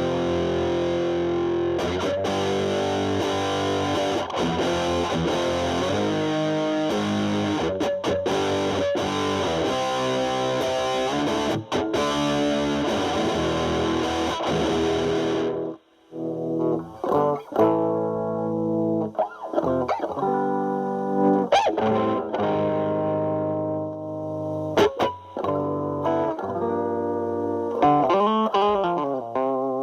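Stratocaster electric guitar through a Boss DS-2 Turbo Distortion pedal in turbo mode, into a Marshall Valvestate amp, playing thick, sustained distorted chords. After a short break about halfway in, the playing turns sparser, with separate notes and chords that sound less gritty.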